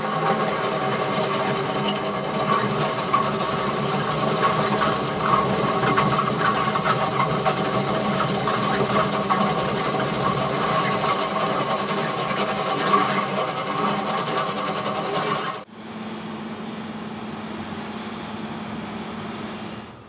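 Vermeer T655 Commander 3 rockwheel trencher cutting a narrow trench in hard rock: a loud, steady machine drone with a dense crackle of cutting. About fifteen seconds in it drops suddenly to a quieter steady hum.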